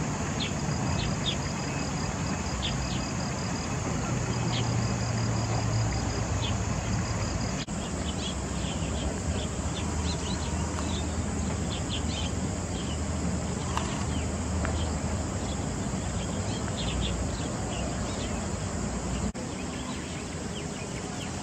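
Outdoor ambience: a steady hiss, an evenly pulsing high insect trill in the first several seconds, and many short high bird chirps scattered throughout.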